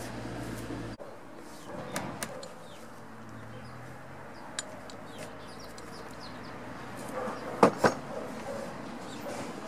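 A few light clicks as a welded steel roller carriage is handled on a wooden beam, then two sharp knocks close together near the end as the steel is set down on the wood.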